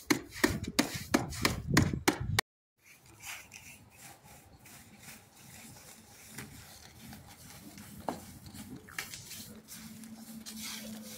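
Quick run of short scraping or rubbing strokes, several a second, cutting off abruptly about two and a half seconds in; after that only faint background with a few soft clicks and a faint low hum near the end.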